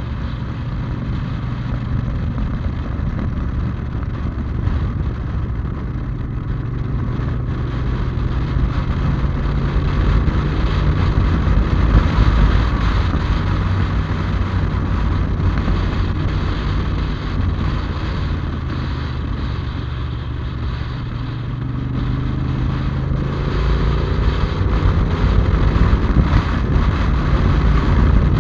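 Yamaha TDM parallel-twin motorcycle engine running at a steady road speed, heard from the rider's helmet with wind and road noise. The engine pitch rises and it grows louder over the last several seconds as the bike accelerates.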